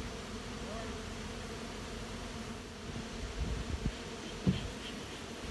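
Dense, steady buzzing of many honeybees flying around the hive stacks. A few dull low bumps come in the second half.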